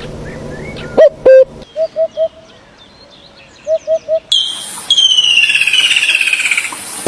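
Bird calls: short, low, repeated notes, one loud pair about a second in and then groups of three. About four seconds in they give way to a loud, rapid run of high, falling notes.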